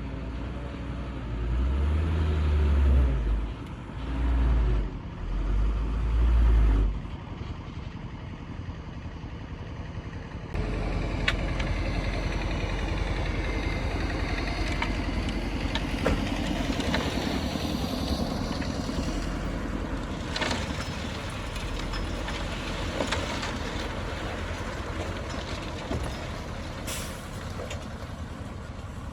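Heavy diesel machinery at work: three deep engine surges in the first seconds, then a steady running noise with scattered knocks and clatter.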